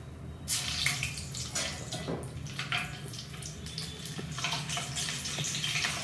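Green chillies sizzling and crackling in hot oil in an iron kadai, the sizzle starting suddenly about half a second in as they go into the oil.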